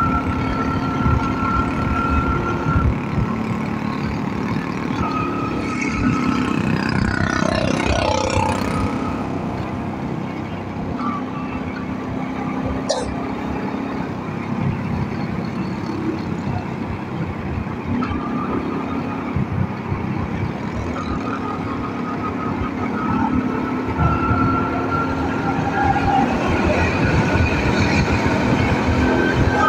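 Motorcycle engine running at road speed in city traffic, with a steady engine pitch and wind rumbling on the microphone.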